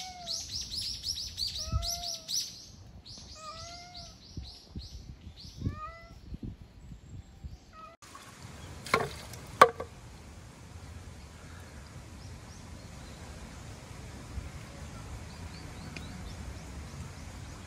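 A hungry tabby cat meows about four times, each call rising and falling, roughly two seconds apart, over a quick run of high bird chirps. After about eight seconds this gives way to a steady outdoor hiss, with two sharp knocks about half a second apart; the second knock is the loudest sound.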